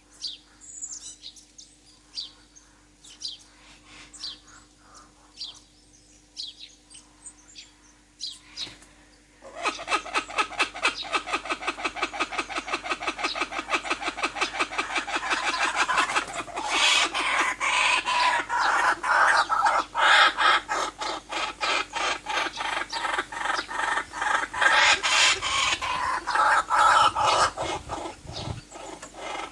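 Wild birds calling: scattered short chirps at first, then about nine seconds in a rapid, dense chatter of repeated calls starts and swells into loud, overlapping calls from many birds.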